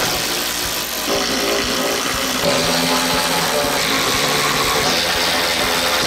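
Craftsman cordless ratchet's motor running as it backs out the screws of the windshield retaining strips, with a steady whir whose tone shifts about a second in and again about two and a half seconds in.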